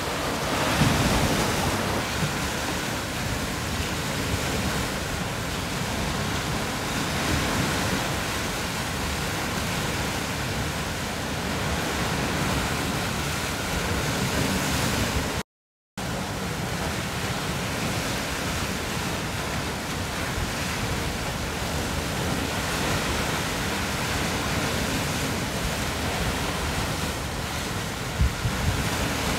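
Steady wind and sea-wave noise, with a brief silent gap about halfway through.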